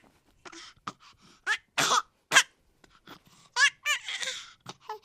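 Baby hippo calling in a run of short, irregular calls, some breathy and some squeaky with a wavering pitch.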